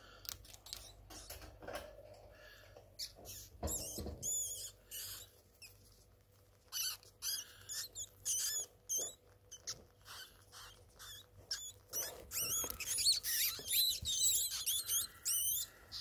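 Pet rats squeaking over and over: short, high-pitched, wavering squeaks that come in clusters, thickest and loudest in the last few seconds, among light clicks and scratching as the rats move about the cage.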